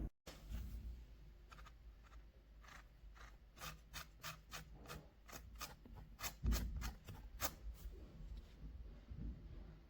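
Keys of an AULA S98 Pro mechanical keyboard being typed on: a run of light clicks, about three a second, for a few seconds, with a low thump about halfway through.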